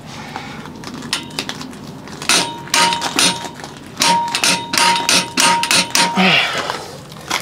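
Rapid metal clicks and knocks from a heavy-duty adjustable torque wrench being worked on a semi-truck lug nut, with a thin steady high tone through the middle.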